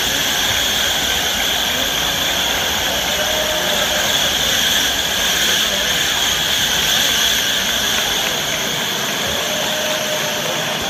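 Live electronic music from a festival sound system, heard from far back in the crowd: a loud, steady, hissing wash of sound with no clear beat. The bass falls away near the end.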